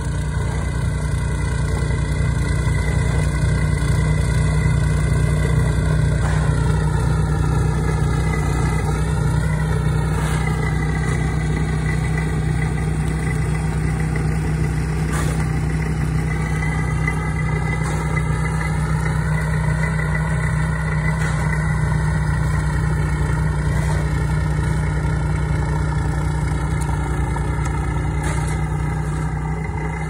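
An engine running steadily with a deep, even hum; its tone shifts slightly now and then.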